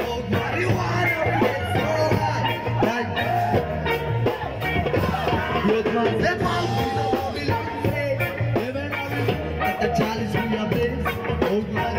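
Live rock band playing electric guitars and a drum kit, with a steady beat and a singing voice.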